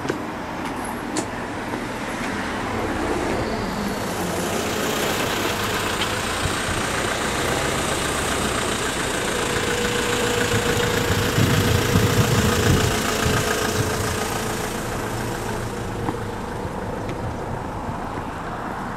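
A large vehicle passing by: its noise swells gradually, peaks about twelve seconds in with a steady hum, and fades away.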